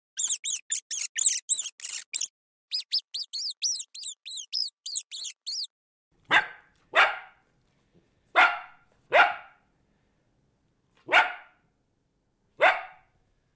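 A dog barking: six single barks with gaps of about half a second to two seconds between them, starting about six seconds in. Before that, a fast run of high-pitched chirps, several a second, that stops just before the barking begins.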